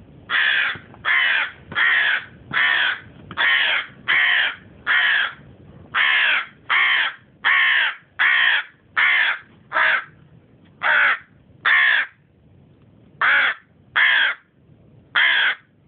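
Hooded crow cawing: a long series of about eighteen loud caws, evenly spaced at first, then with longer pauses between them over the last few seconds.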